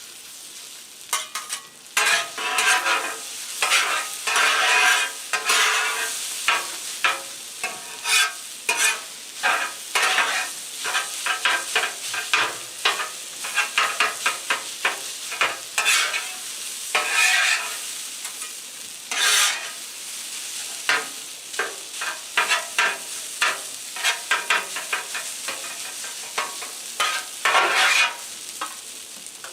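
Cornstarch-coated chicken pieces sizzling on a Blackstone flat-top griddle, while spatulas scrape and clack against the steel griddle surface over and over as the pieces are separated and turned.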